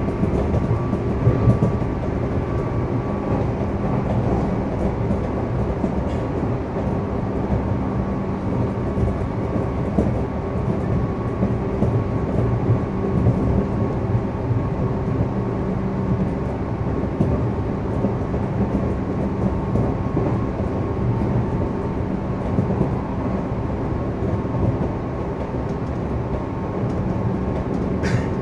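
Running noise inside a JR East 211 series electric train: steady rumble of wheels on rail with a steady hum from its field-added-excitation-controlled DC traction motors, the train running at an even speed. A short sharp sound comes near the end.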